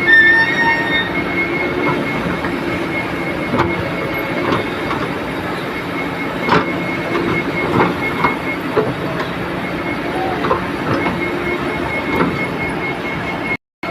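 JCB backhoe loader's diesel engine running under load as it digs and loads, with its hydraulics working and scattered knocks and clanks. A steady high whine runs over it.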